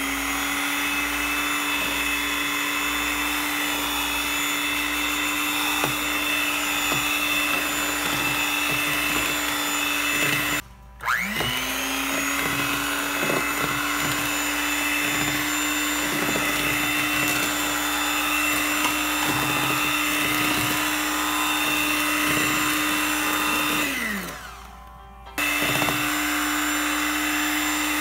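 Electric hand mixer running with a steady motor hum, its beaters whisking batter in a glass bowl with scattered light knocks. It stops briefly a little over a third of the way in and spins back up. Near the end it winds down, is off for about a second, then starts again.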